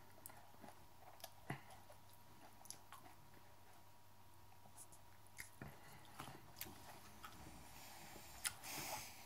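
Faint chewing of a raw hot chili pepper, with soft scattered mouth clicks and a brief louder rustle near the end.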